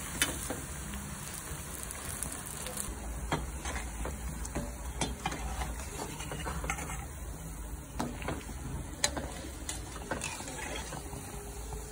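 Urad dal vadas sizzling as they deep-fry in hot oil, with scattered clicks and scrapes of a perforated steel skimmer against the pan as they are turned.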